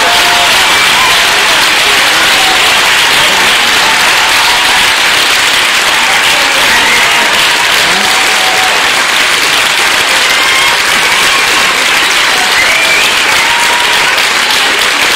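Audience applauding steadily in a theatre, with a few voices calling out over the clapping.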